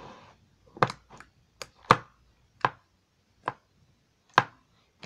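Clicky slime being pressed and poked by hand in a small plastic container, giving about half a dozen sharp clicking pops at uneven intervals.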